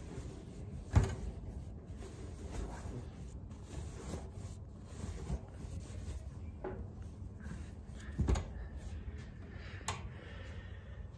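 Laundry rustling and rubbing as clothes are pushed by hand into the drum of a 1953 Westinghouse front-loading washing machine. A loud dull knock comes about a second in, another comes later, and there is a short sharp click near the end.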